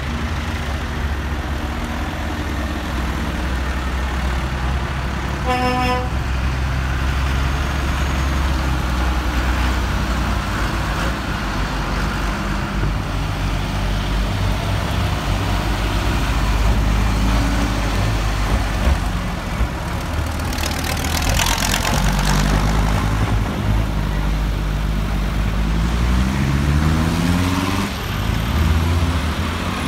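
Diesel engines of modern Massey Ferguson and John Deere farm tractors running as they drive past one after another. A horn toots once about six seconds in, a brief hiss comes a little past the middle, and an engine revs up with a rising note near the end.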